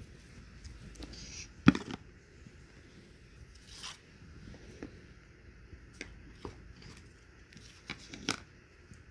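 Cardboard jigsaw puzzle pieces being handled, slid and fitted together: scattered light clicks and scrapes, with one sharper click a little under two seconds in.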